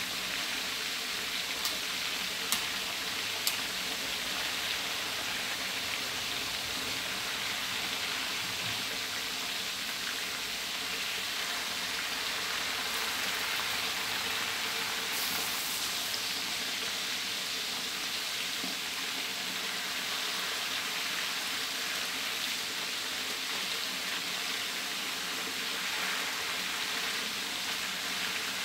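Pieces of pla som (fermented sour fish) deep-frying in a wok of hot oil: a steady sizzle, with a few sharp clicks in the first few seconds.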